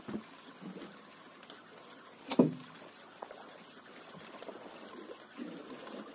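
Water lapping against the hull of a wooden fishing boat, with one sharp knock about two and a half seconds in.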